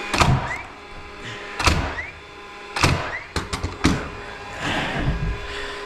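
Pneumatic framing nail gun driving nails into 2x4 lumber: about six sharp shots at irregular intervals, a few followed by a short rising whistle.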